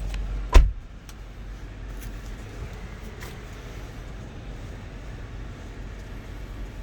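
A car door shuts with one heavy thump about half a second in, then the steady low hum of the Lexus GX 470's idling 4.7-litre V8, heard from inside the cabin.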